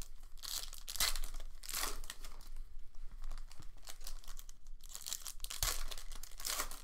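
Foil Panini football card pack wrappers being torn open and crinkled by hand, in several short bursts with a longer one near the end.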